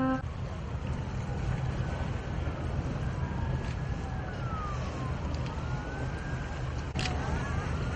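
A siren wailing slowly up and down, faint over a steady low rumble, with one sharp click about seven seconds in.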